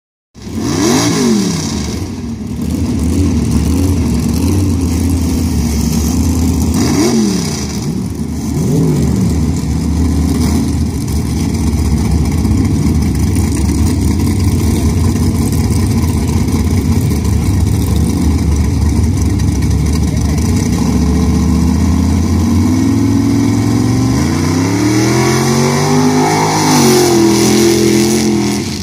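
Big-block Ford V8 in a mud-racing truck, loud throughout: three quick throttle blips in the first ten seconds, a steady run at the line, then the engine speed climbs near the end as the truck launches down the pit. It runs on engine alone, because the nitrous pressure switch kicked out.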